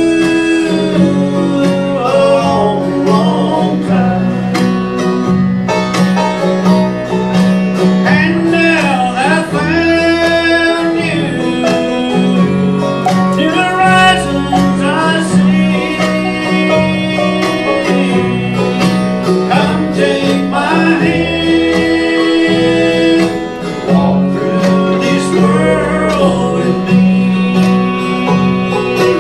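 Country/bluegrass band music with plucked string instruments, an instrumental stretch with no singing.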